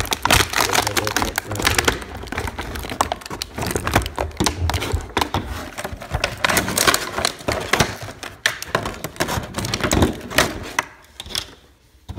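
Clear plastic blister packaging crinkling and crackling as it is handled and pulled open, a dense run of clicks and taps that thins out near the end.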